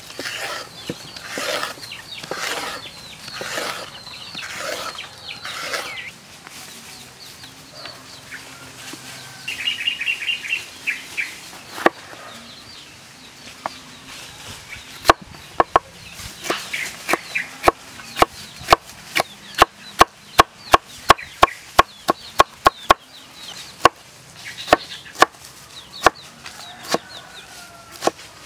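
A julienne peeler scraping down a carrot in about seven even strokes, then a cleaver chopping bell pepper on a wooden board in quick, sharp knocks, several a second, for the last half. Chickens cluck in the background, most clearly about ten seconds in.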